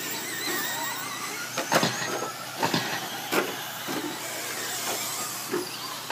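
Radio-controlled short course trucks racing on a dirt track, their motors whining and rising and falling in pitch with the throttle. Three sharp knocks come at about two, three and three and a half seconds in.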